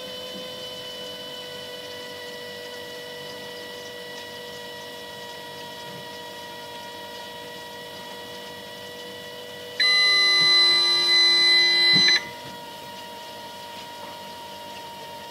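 Siemens KG49 fridge-freezer giving off a steady whine of several high tones together, sliding slightly lower in pitch, the strange sound its owner is recording as a possible fault. About ten seconds in, a much louder electronic tone sounds for about two seconds and cuts off suddenly.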